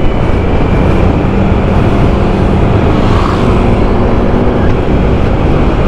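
Steady riding noise from a small white-plate motorcycle on the move: wind rushing over the microphone over the low, even note of the running engine.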